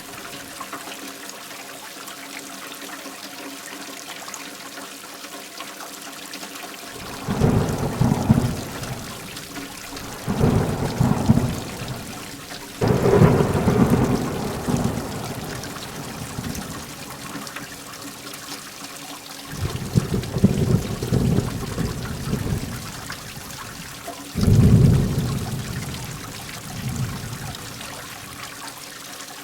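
Heavy rain falling steadily, with five rolls of thunder breaking in one after another from about a quarter of the way through. Each roll starts suddenly and dies away over two to three seconds.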